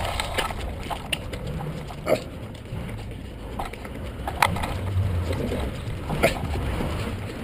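Knocks and rattles of a bicycle being moved up a stone stairwell, picked up by a camera mounted on its handlebar. A low rumble of handling noise runs underneath, and a few sharp knocks stand out, about two, four and a half and six seconds in.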